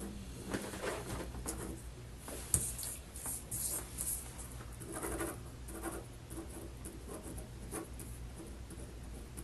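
Pen scratching on paper in short strokes as a form is signed and filled in, with one sharp tap about two and a half seconds in, over a low steady hum.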